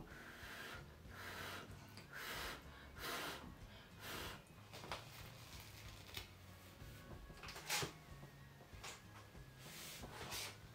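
Faint, intermittent rubbing and handling noises, short scrapes about a second apart, with one sharper tap or click about three quarters of the way through.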